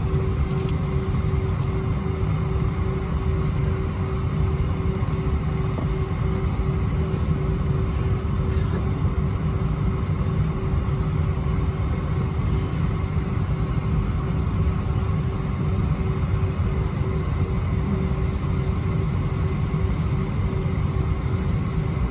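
Steady low rumble inside an Airbus A320-231 passenger cabin, with a steady whine running under it.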